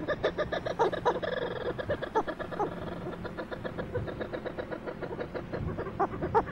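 Cape petrels chattering on the water: rapid runs of harsh, stuttering calls from several birds, over a steady low hum.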